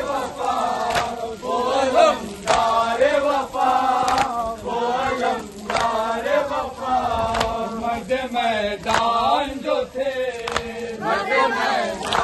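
A crowd of men chanting together in a Muharram procession's mourning chant, with sharp knocks at uneven intervals.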